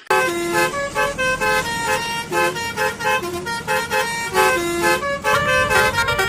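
Multi-tone bus telolet horn playing a quick tune, its notes changing every few tenths of a second without a break.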